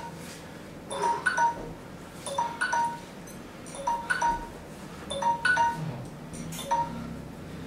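Soft bell-like chime tones: short ringing notes at a few different pitches, often in pairs, repeating about every second or so over a faint low hum.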